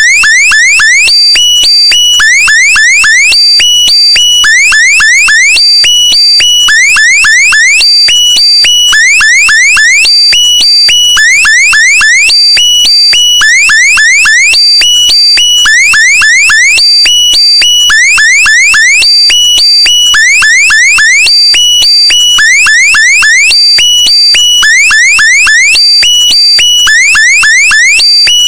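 Looped electronic alarm-like sound effect: a quick run of rising chirps with a steady high beep, repeating about every second and a half.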